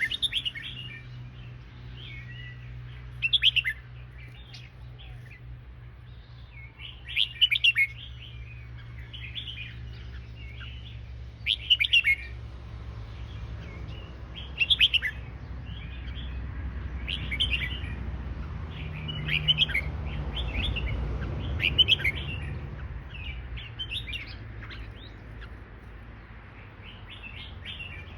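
Red-whiskered bulbul singing short, bright phrases that repeat every two to four seconds, over a steady low hum.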